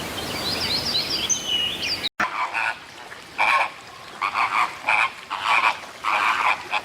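Small birds chirping with high, quick glides, then after a brief cut a run of about seven short, repeated animal calls, each a fraction of a second long.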